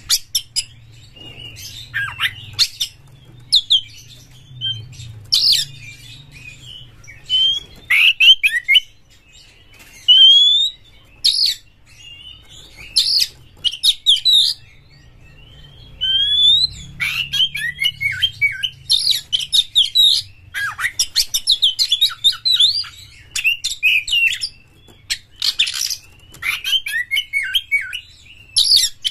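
Oriental magpie-robin (kacer) singing loudly: sliding whistles and rapid chattering phrases in separate bursts with short pauses, packed more tightly in the second half.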